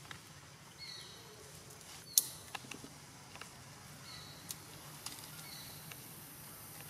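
Quiet forest-floor ambience: a short, high, slightly falling chirp comes four times, with a few sharp clicks and crackles, the loudest about two seconds in, over a faint steady high hiss.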